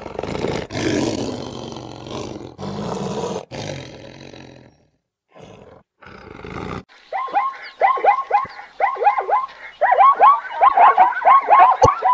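A lion roaring in a few long, rough calls for about the first five seconds. After a short gap, a zebra's barking call begins: rapid high yelps, each falling in pitch, several a second.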